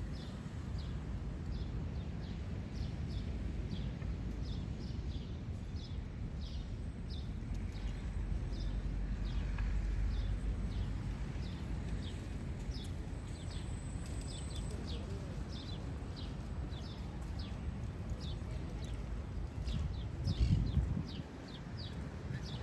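A small bird chirping over and over, short falling chirps about two a second, over a steady low outdoor rumble. A louder low gust comes near the end.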